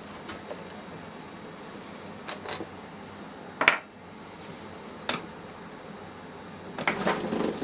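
Metal clinks and knocks as the cylinder head of a Tecumseh lawn mower engine is worked loose and pulled off: a few separate sharp clicks, the loudest about three and a half seconds in, then a quick rattle of clinks near the end.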